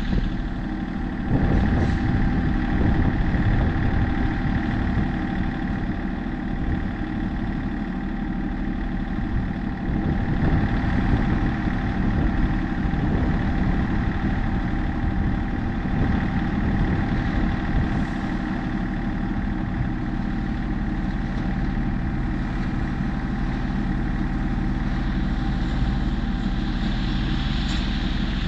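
Diesel engine of heavy earthmoving equipment running, with louder stretches under throttle about a second in and again around ten seconds.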